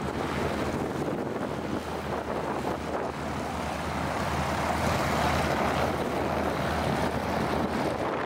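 Beechcraft T-34 Mentor's six-cylinder Continental piston engine running at taxi power as the plane rolls past, its engine and propeller noise swelling as it comes closest about five seconds in. Wind buffets the microphone.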